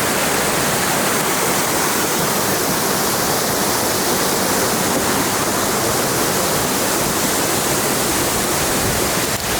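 Waterfall rushing with a steady, loud roar of water, running full after weeks of heavy rainfall.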